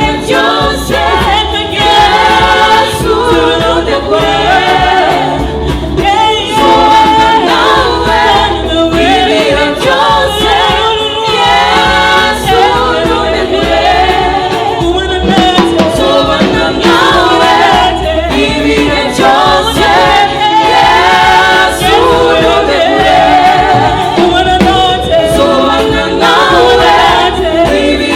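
Gospel song performed with sung lead and choir voices over backing music with a steady low beat.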